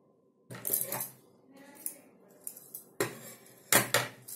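Metal tailoring tools handled on a table: a series of irregular clinks and clatters, the loudest pair close together near the end.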